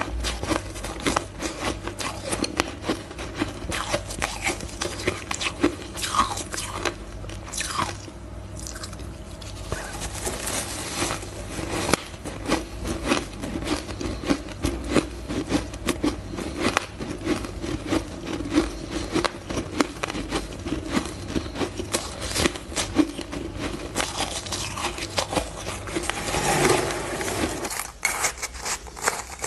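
Close-miked crunching and chewing of shaved ice: a dense run of crisp crunches, with a brief lull about eight seconds in.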